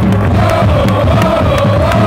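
Soccer stadium crowd singing together in unison, a slow wavering tune, with scattered claps.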